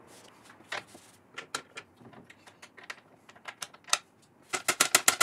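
A wet scouring sponge scrubbing the bare wooden floor and front rail of a cabinet: irregular short scuffs and light knocks, turning into a quick run of strokes near the end.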